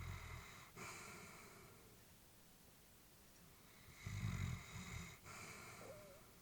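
An elderly Labrador retriever breathing slowly in her sleep, with a light snore. One breath ends in the first second and a second full breath starts about four seconds in. Each breath comes in two parts with a brief catch between: a low rumbling part, then a softer, airier part.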